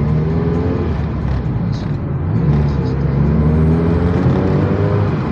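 Ferrari 308 Quattrovalvole's 2.9-litre four-valve V8 pulling the car along, its note climbing in pitch, breaking off about a second in, then climbing steadily again from about two and a half seconds as the car accelerates.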